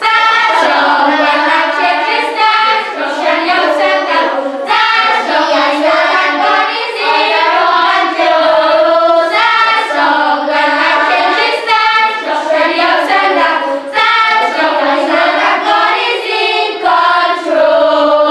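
A choir of children's voices singing a song in phrases, with short breaks between them.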